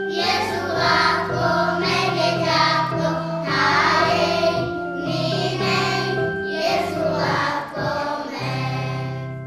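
A group of young children singing a song together in unison, over steady held notes of an instrumental accompaniment.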